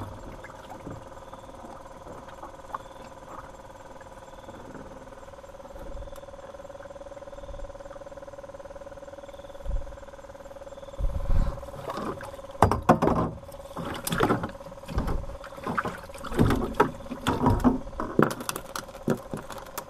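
Knocks and clatters of gear being handled in a small fishing boat, thick from about eleven seconds in, over a steady hum.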